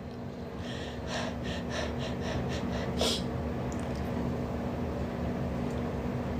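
A person breathing in a quick run of about eight short, breathy strokes, roughly three a second, ending with a stronger one about three seconds in.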